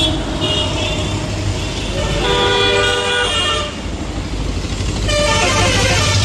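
Road traffic running with a vehicle horn sounding about two seconds in and held for about a second and a half; more pitched sound follows near the end.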